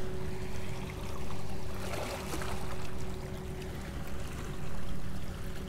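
Steady engine hum of a boat out on the harbour, one held tone over a low rumble, with water lapping and trickling against the rocky shore that swells a few times.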